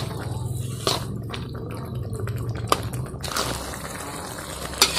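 Metal spatula stirring shell-on freshwater mussels through a thick, wet sauce in a wok: squelching liquid, with sharp clicks of spatula and shells against the pan about a second, three seconds and five seconds in.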